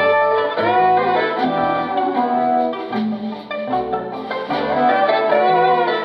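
Violin playing a melody of held notes with vibrato, over a low instrumental accompaniment.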